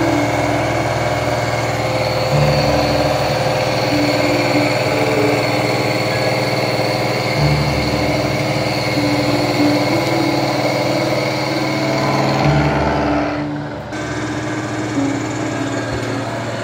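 Milling machine cutting D6 tool steel with a carbide cutter: a steady grinding whine with high ringing tones. The high part of the cutting sound drops away about three-quarters of the way through. Slow background music plays underneath.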